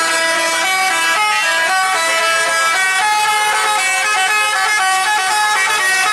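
Bus 'telolet' musical air horn playing a quick tune of stepped horn notes.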